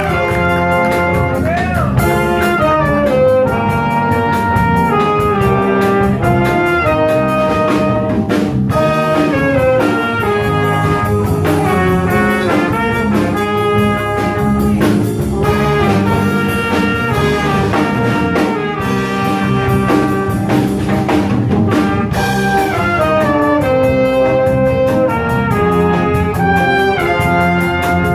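Small jazz combo playing, with brass horn lines to the fore over piano, bass and drums. The band is a sextet of trumpet, tenor saxophone, trombone, piano, bass and drums.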